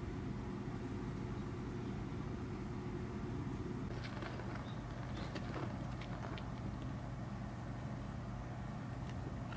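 Steady low mechanical hum, with a higher tone in it that drops out about four seconds in. Faint short scratches and clicks come between about four and six and a half seconds in.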